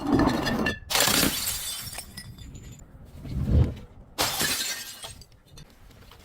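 Glass bottles shattering: three sudden crashes, at the start, about a second in and about four seconds in, each trailing off in a spray of breaking glass, with a heavy low thud just before the last one.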